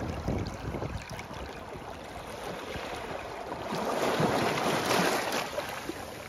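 Shallow water rushing and washing over rocks, swelling a little past the middle, with wind buffeting the microphone.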